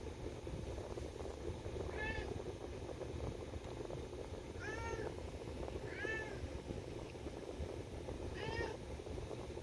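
Domestic cat meowing four times, each short meow rising then falling in pitch: begging to be taken out for a walk.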